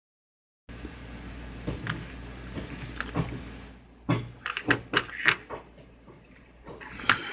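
Handling noise: a run of light clicks and knocks as small parts of the charging case are handled, busiest past the middle, over a faint steady hum.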